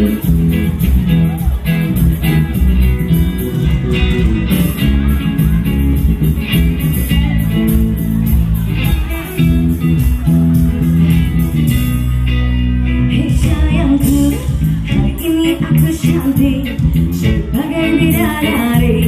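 Live band music with a singer, electric guitar and electronic drum kit, played loud through stage speakers.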